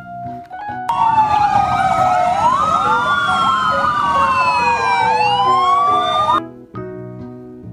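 Several fire engine sirens wailing together, their pitches sliding up and down across one another. They start about a second in and cut off suddenly about a second before the end.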